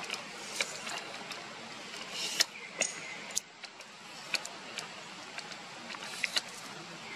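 Steady background hiss with scattered sharp clicks and ticks, the loudest a little over two seconds in.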